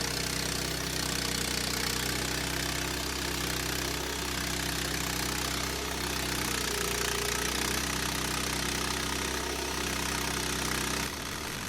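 Small gasoline engine running steadily at an even speed, stopping abruptly near the end.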